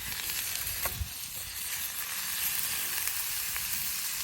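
Food frying in a hot pan: a steady sizzle, with a small knock about a second in.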